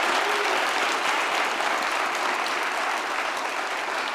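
Congregation applauding, a dense patter of many hands clapping that slowly dies down.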